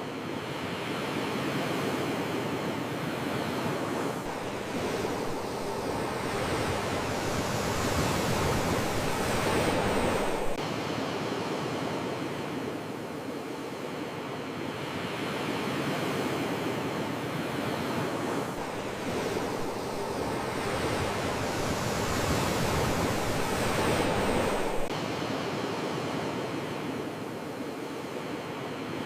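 Sea waves washing ashore: a steady rush of surf that slowly builds to a peak and falls away twice, about fourteen seconds apart.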